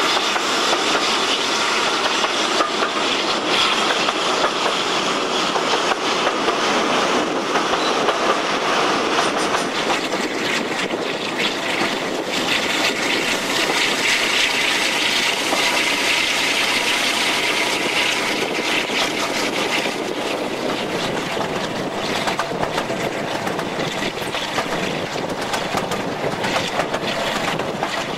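Diesel-hydraulic locomotive hauling a train at speed, heard from a window beside its cab: a steady rush of wind and engine noise, with the wheels clattering over the rails.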